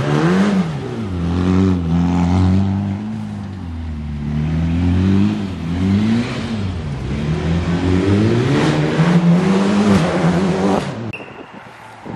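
Mitsubishi Lancer Evolution rally car's engine accelerating hard out of a hairpin. The revs rise and drop several times as it shifts up through the gears, then fade away near the end.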